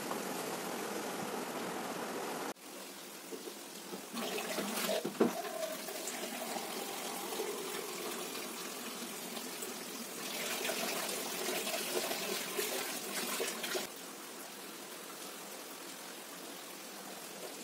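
Water running from a tap in a small tiled bathroom for about four seconds, starting about ten seconds in. Before it come a couple of knocks as clay plant pots are set down on the tiled floor.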